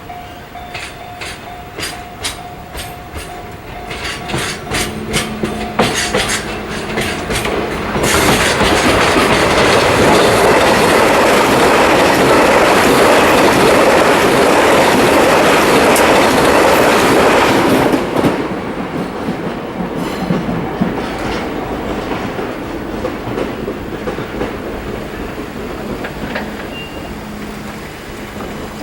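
A train passing over a level crossing: the wheels clack over the rail joints, then a loud rush for about ten seconds from about eight seconds in as it goes by close, before it fades away.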